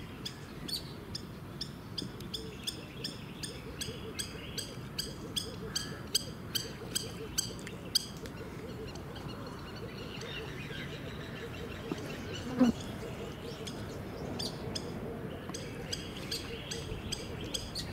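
Wild birds calling at a wetland: a rapid run of short, sharp chip notes, about two to three a second, fading out around the middle and coming back near the end, over a steady background of ambient sound. One louder, lower sound stands out a little past the middle.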